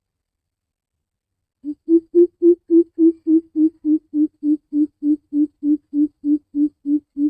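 Greater coucal giving its deep, booming hoot call: a long, even series of about twenty low 'oop' notes at three to four a second. It starts a little under two seconds in, is loudest at the beginning, then runs on slightly softer.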